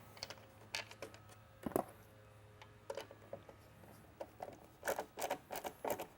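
Scattered light clicks and taps of plastic parts being handled as a strobe assembly is fitted onto the mounting tabs of a mini lightbar's base, coming more often near the end, over a faint steady hum.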